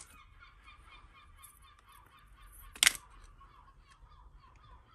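Costume jewellery being handled and sorted, with light metallic clicks and one sharp clack of pieces knocking together about three seconds in. Underneath runs a faint, continuous chatter of bird calls.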